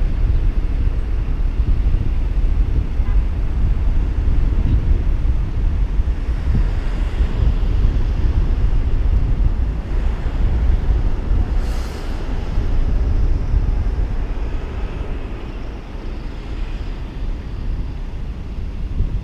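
Car driving on a town road: a steady low rumble of road, engine and wind noise buffeting the microphone, with a brief sharp noise about twelve seconds in.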